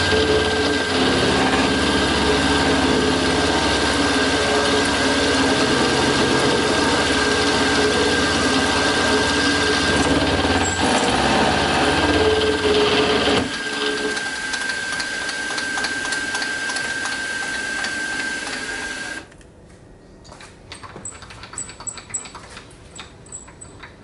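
Benchtop mini milling machine, a PM-25MV clone, cutting an aluminium block with an end mill: a steady motor whine over the rough cutting noise. About halfway the cutting noise drops away while the spindle whine carries on, and a few seconds later the spindle shuts off, leaving only faint small clicks.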